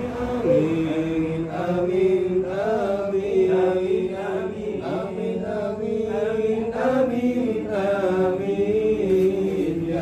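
A group of men's voices chanting a recitation in unison from booklets, long held notes rising and falling in a slow melody without a break.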